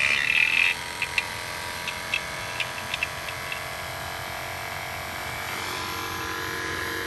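NAVAC 4 CFM battery-powered refrigeration vacuum pump spinning up and then running steadily, pulling a vacuum on a heat pump system through its hoses. A louder rush fades out in the first second as the pitch rises, and a few light clicks follow in the next couple of seconds.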